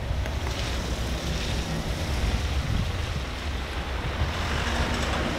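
Wind buffeting the microphone in a deep, uneven rumble over a steady outdoor hiss.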